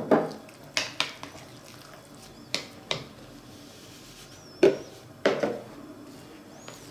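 Metal spoon knocking and scraping against a glass mixing bowl while stirring crumbly cornmeal dough: about seven sharp clinks, the loudest a little past halfway.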